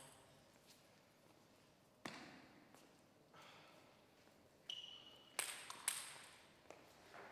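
Near quiet, broken by a handful of light, sharp clicks of a table tennis ball bouncing. Two of the clicks come close together about two thirds of the way in, and a brief high squeak comes just before them.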